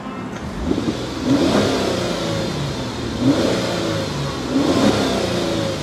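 2002 Chrysler Sebring Limited Convertible's 2.7-litre V6 revved three times in park from idle to about 3,000 rpm, each rev rising and falling back to idle, heard from the driver's seat.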